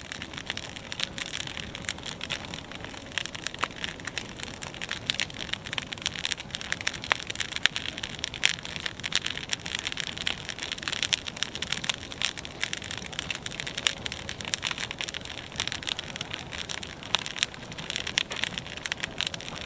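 Fire crackling: a dense, irregular run of sharp pops and snaps over a steady hiss.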